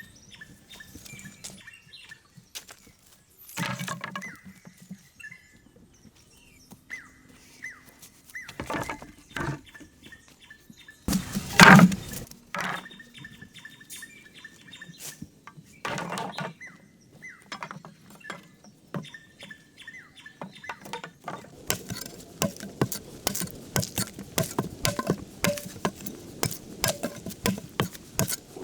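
Birds chirping in short repeated calls, with scattered knocks and thuds from hand work; the loudest knock comes about twelve seconds in. Near the end it gives way to a rapid run of taps and scrapes.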